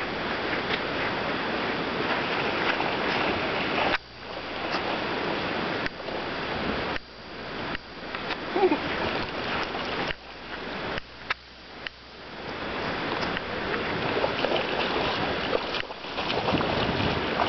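Wind rushing on the microphone over lake water, a steady noise broken by several sudden brief drops. Near the end a dog splashes as it leaps and wades in the shallows.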